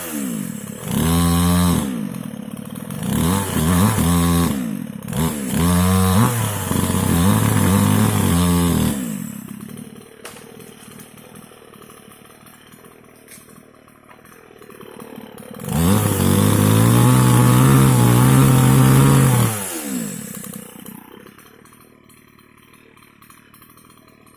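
Mini chainsaw's small two-stroke engine revving in several short surges, dropping back to a low idle for a few seconds, then revving high for about four seconds before falling back again.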